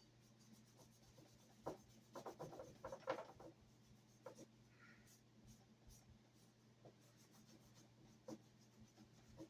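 Faint handling of gun parts by hand: light clicks, taps and scratchy rubbing, bunched about two to three seconds in with a few single ticks later, over a low steady hum.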